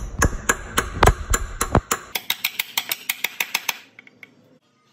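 A metal tool tapping on the intermediate shaft housing under the car, in a quick string of sharp, ringing metallic taps. They come about four a second, then faster, and stop about four seconds in.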